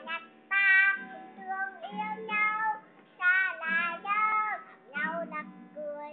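A young girl singing in short phrases, with an acoustic guitar strummed along under her voice.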